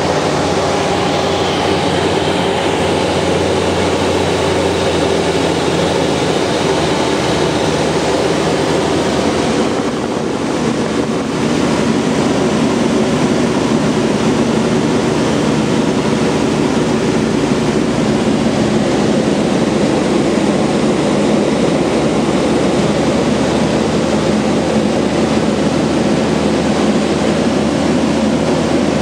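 Gobosh 700 light-sport aircraft's engine and propeller droning steadily, heard from inside the cockpit while on approach to land. The sound dips briefly about ten seconds in, then returns to the same drone.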